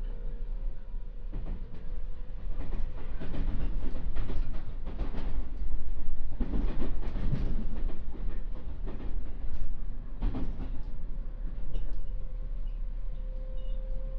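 221 series electric train running, its wheels clattering over rail joints in a run of irregular knocks over a steady rumble, loudest around the middle.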